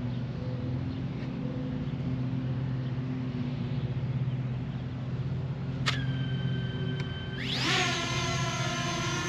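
Fimi X8 Mini quadcopter's motors and propellers spinning up for take-off: about seven and a half seconds in the pitch rises quickly, then settles into a loud steady high whine. Just before, there is a click and a steady electronic beep of about a second and a half.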